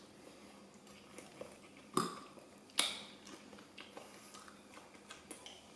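Forks and knives clinking against plates, two sharp clinks about a second apart among a few faint ticks.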